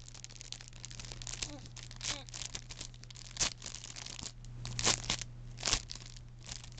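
Plastic wrapping crinkling and tearing as a small package is pulled open by hand, in a run of short crackles with the sharpest tears about three and a half, five and nearly six seconds in.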